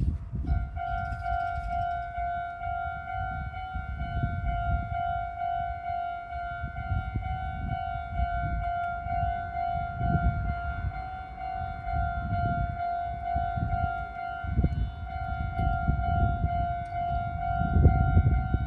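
Japanese railway level-crossing alarm ringing its repeating electronic 'kan-kan' bell tone without a break. A low rumble that rises and falls runs underneath.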